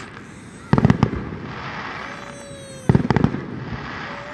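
Aerial fireworks shells bursting: a quick cluster of booms about a second in and another near three seconds, with crackling from the bursts between them.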